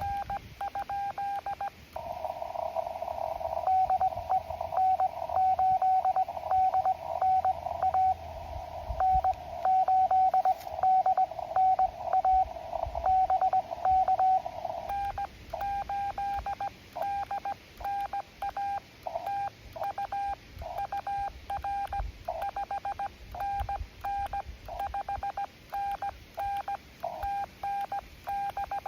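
Morse code (CW) from a ham radio transceiver: a single tone of about 750 Hz keyed on and off in dots and dashes during a contact. For the first half the tone sits in a band of receiver hiss. About halfway through the hiss drops away and the keying goes on cleaner and a little quieter.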